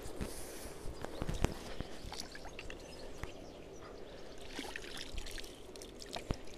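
Lake water splashing and trickling as a landing net holding a mirror carp is dipped into the margin and the fish is released, with a few light knocks and rustles of handling.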